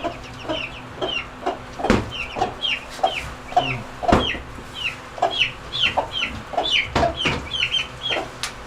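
Newly hatched chicks peeping over and over in short, high, falling chirps, about two a second, with a hen's low clucks beneath. A few sharp knocks break in.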